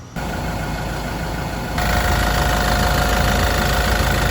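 Yale diesel forklift engine running steadily. The level jumps up suddenly just after the start and again about two seconds in.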